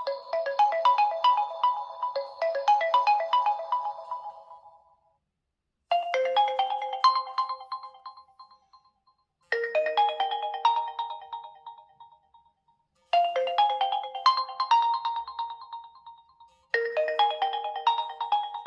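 realme GT2 Pro ringtones playing: a busy, fast melody fades out about four seconds in, then a short melodic phrase repeats four times, about every three and a half seconds, with a brief gap between repeats.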